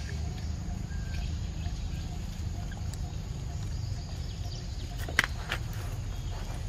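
Macaque chewing a mango, with a few soft mouth clicks about five seconds in over a steady low rumble.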